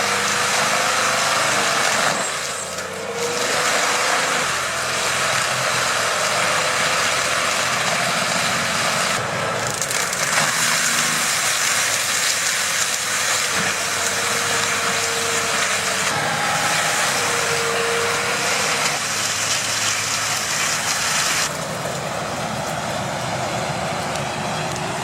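Heavy wood-grinding machine running under load, its engine and cutter grinding wood in a steady loud noise. The sound changes abruptly about two seconds in and again a few seconds before the end.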